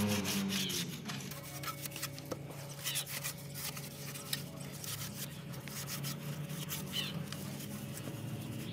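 A rusty spoked bicycle wheel rim being scrubbed with a cloth pad in soapy water: irregular scratchy rubbing strokes.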